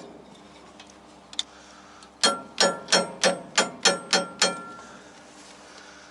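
Seven hammer blows on steel, about three a second, each with a short metallic ring. The blows strike a tower crane's disc brake to free its upper brake shoe, which has stuck to the disc.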